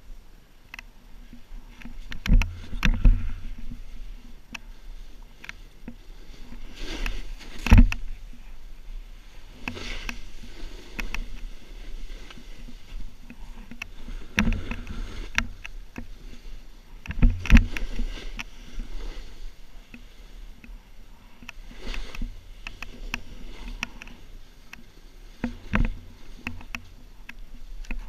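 Snowboard riding through deep powder snow: a steady swish of the board through the snow that swells every few seconds as the rider turns, with thuds and clicks as it knocks over bumps.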